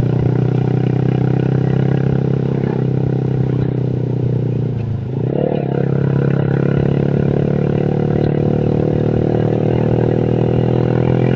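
Tuned Honda Vario scooter's single-cylinder engine, fitted with a 55 mm piston, running under way at a steady speed, with a brief drop in revs about five seconds in before it picks up again.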